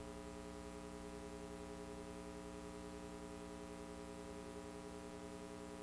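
Faint, steady hum made of many evenly spaced tones, unchanging throughout: background hum on the recording.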